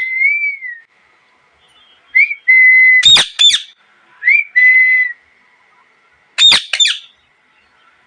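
Indian ringneck parrot giving sharp, loud screeching calls in quick pairs, one pair about three seconds in and another about six and a half seconds in. Clear, steady whistled notes, some with short upward slides, come in between the calls.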